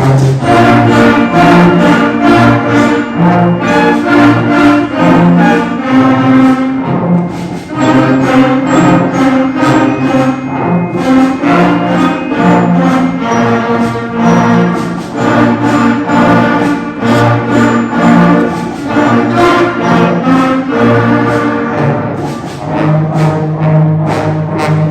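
School concert band playing an instrumental piece, with the brass section prominent and sustained chords changing in a steady rhythm.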